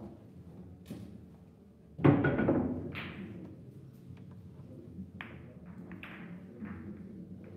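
Boccette shot: billiard balls thrown by hand across the cloth, with a loud knock about two seconds in, then a run of lighter clacks as the balls strike each other and the cushions.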